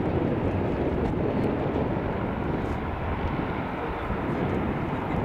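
Distant aircraft engines across an airfield: a steady, mostly low noise with no distinct tone or change.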